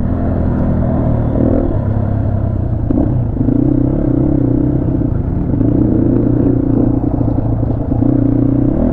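HJ250 motorcycle engine running under way on a rough off-road trail, its note holding fairly steady with small rises and dips in pitch, and a brief clatter about three seconds in.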